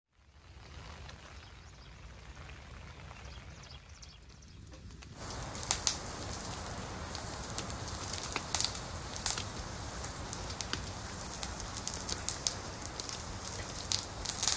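Open wood fire crackling, with a steady hiss and sharp pops that grow brighter and more frequent about five seconds in.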